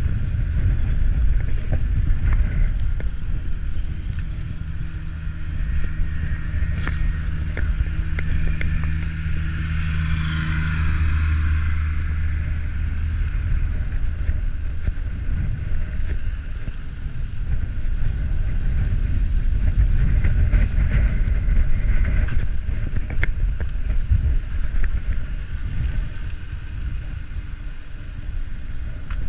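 Wind and road rumble on a cyclist's camera microphone while riding. A motor vehicle's engine hum runs alongside from about four seconds in, and its tyre hiss swells as it passes about ten to eleven seconds in, then fades.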